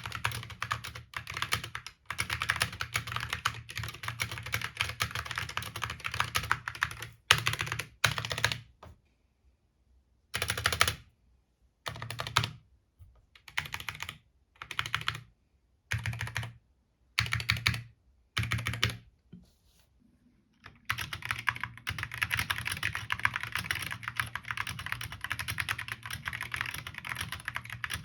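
Keychron K6 mechanical keyboard fitted with OEM-profile PBT retro keycaps being typed on. There is steady fast typing at first, then from about nine seconds short bursts of keystrokes with silent gaps between them, and steady typing again from about twenty-one seconds.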